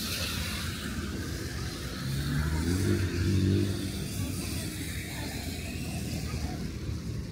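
A car drives past on a wet street, its engine swelling to a peak about three seconds in and then fading, over a steady hiss of rain and wet road.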